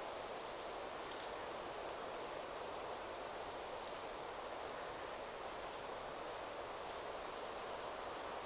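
Wind rustling through forest trees as a steady hiss. Over it, a small bird gives thin, high call notes in quick groups of two or three, repeated every second or so.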